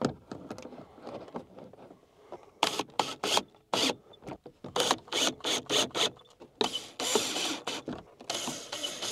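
Ryobi cordless drill-driver driving screws: a string of short spurts, then two longer runs near the end.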